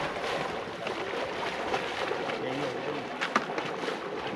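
River water rushing steadily, with a single sharp click or knock about three seconds in.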